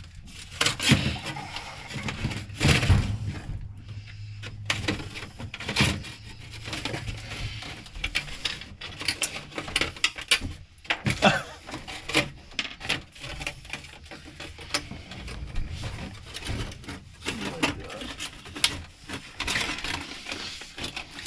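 Flexible foil dryer vent duct crinkling and rattling as it is pushed and worked onto the vent outlet, with irregular knocks and clicks from handling.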